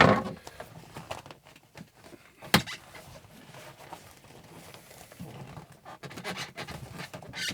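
Rustling and scraping of a leather sleeper curtain being worked loose from behind a truck cabinet, with a loud knock at the start and a sharp click about two and a half seconds in.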